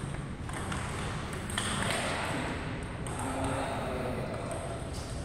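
Table tennis rally: a few sharp, irregular clicks of the ball striking paddles and the table, over steady background noise of the hall.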